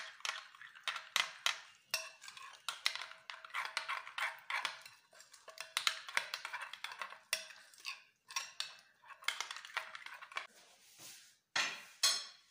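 Metal spoon scraping and clinking against a ceramic bowl as it stirs a thick yogurt marinade, in quick irregular strokes, with a louder clink near the end.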